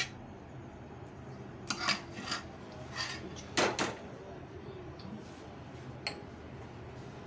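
Several short knocks and scrapes of a steel cooking pan and utensils being handled and moved on a countertop, the loudest a little past halfway, with a last light click near the end.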